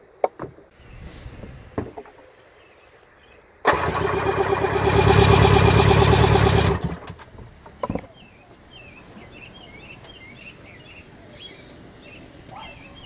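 Electric starter cranking over a 1975 Mercury 850 outboard's inline four-cylinder two-stroke engine for a compression test, a steady pulsing turnover of about three seconds that starts a few seconds in and cuts off suddenly.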